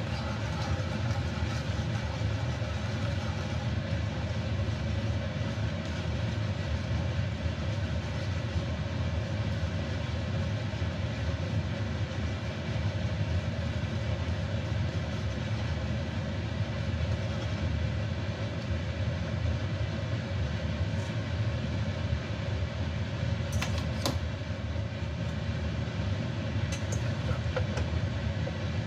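Steady low rumble with a hiss over it, from a kitchen stove running under a wok of oil and melting sugar while it is stirred with a wooden spoon; a few light clicks come about two-thirds of the way through.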